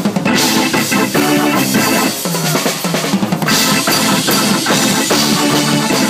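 Live Latin rock band playing loudly, with the drum kit close and the loudest part: busy, rapid snare, tom and bass drum hits over the rest of the band, as the band drives toward the song's big ending.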